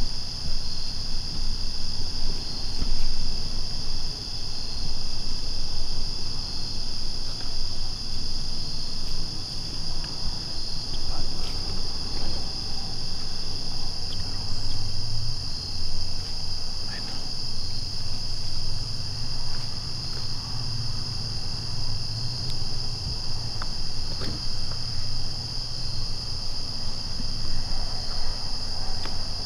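Insects calling in a steady high-pitched trill with a faint regular pulse, over a low rumble that swells in the middle.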